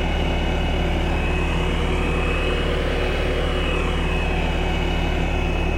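Skid steer engine running steadily at working speed, a deep rumble with a steady high whine over it.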